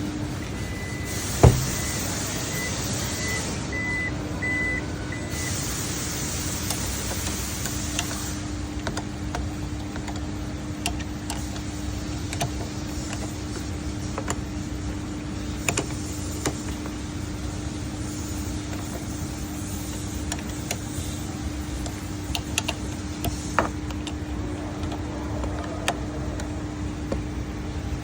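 Sounds around a Toyota Yaris Cross whose rear door is being checked for a noise: a steady low hum throughout, one loud sharp clunk about a second and a half in, a run of short high beeps in the first few seconds, and scattered clicks and knocks after that.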